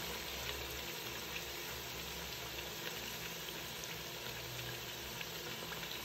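Samosas deep-frying in hot oil: a steady sizzle with faint scattered crackles.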